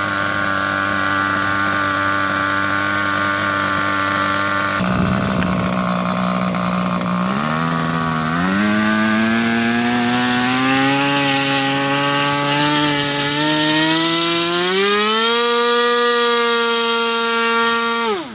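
Paramotor's small two-stroke engine running steadily, its note changing about five seconds in, then climbing in steps to a higher speed that it holds, before falling away sharply right at the end.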